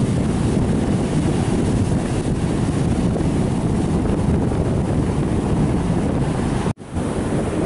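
Storm surf: rough sea with large waves breaking and churning onto the shore in a steady, heavy rush, mixed with wind buffeting the microphone. The sound drops out for an instant near the end.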